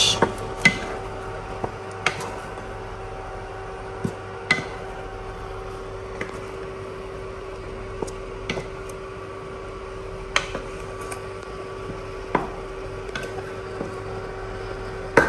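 Wooden spatula stirring thick okra soup in a metal pot, with soft wet squelching and a scattering of short knocks and scrapes against the pot's side, over a steady electrical hum.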